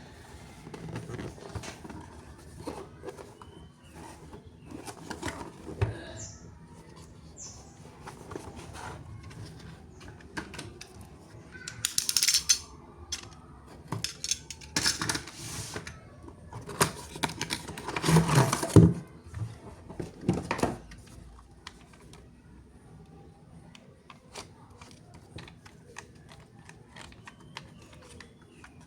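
Hands handling plastic toys and packaging: irregular clicks, taps and rustles, with louder rustling bursts about twelve and eighteen seconds in.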